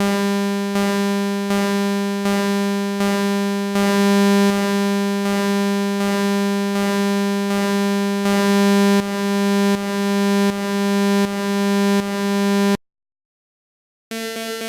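Synthesized imitation of an MRI scanner's gradient-coil noise: a loud, steady, low buzz with many overtones, pulsing a little faster than once a second. It cuts off suddenly about 13 seconds in, and after a second of silence a different, higher-pitched buzz begins, a new scan sequence.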